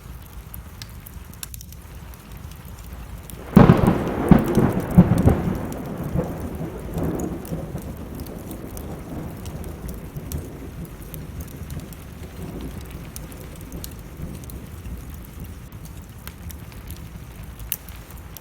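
A thunderclap breaks about three and a half seconds in and rumbles, fading away over several seconds, over steady rain and the crackle of a wood fire.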